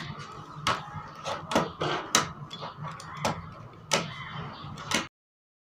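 Irregular sharp clicks and taps from a small cube built of staples as it is handled and set down on a wooden tabletop, over a low steady hum. The sound cuts off abruptly about five seconds in.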